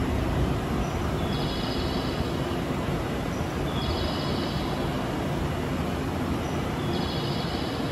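Steady low rumble of a railway station platform, with a high tone of several pitches sounding for about a second roughly every three seconds, three times.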